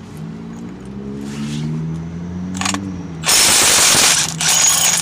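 Cordless impact wrench with a 33 mm socket hammering on the pitman arm nut of a steering gearbox to break it loose. It runs in two bursts in the second half, about a second and then half a second long.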